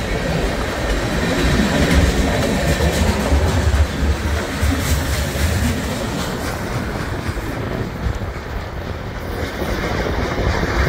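A train rolling past: railroad cars with their wheels clattering over the rails, over a steady deep rumble.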